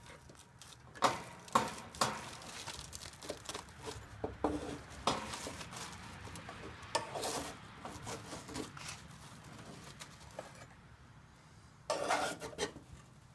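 Irregular knocks, scrapes and rubbing of a plastic bucket and gloved hands working against a snowmobile's hood, pulling a papery wasp nest loose. There is a louder clatter near the end.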